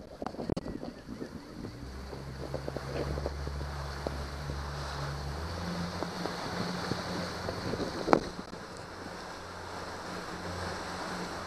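Small motorboat's engine running under way, with water splashing along the hull and wind on the microphone. The engine hum comes in about two seconds in and steps up in pitch about halfway through, and there is one sharp knock about eight seconds in.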